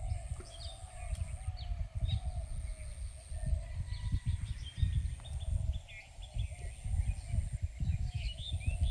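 Outdoor ambience: small birds chirping in short calls over a gusty low rumble of wind on the microphone, with a thin high insect-like whine that stops and starts.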